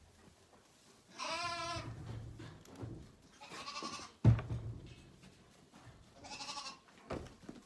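Zwartbles lambs bleating, three wavering bleats a couple of seconds apart, with one sharp thump about four seconds in.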